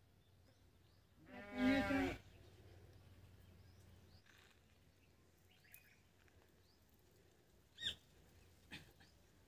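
A single bleat from a farm animal, about a second long, starting a little over a second in. Two short bird chirps come near the end.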